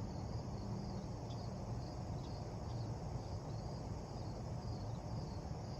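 Insects chirping in a quick, steady pulsing rhythm over a low, steady mechanical hum.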